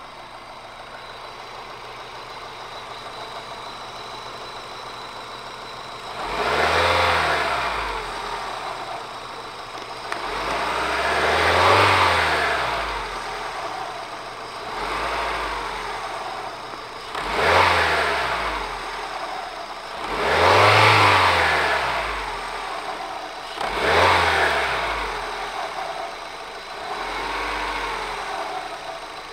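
Car engine with a newly replaced timing belt, idling for about six seconds and then revved about seven times. Each rev rises and falls back to idle, and two of them near the middle and the last one are smaller.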